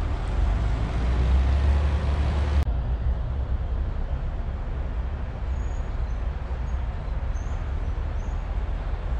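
Steady low rumble of road traffic with outdoor noise. The sound changes abruptly about two and a half seconds in, thinning out in the higher range.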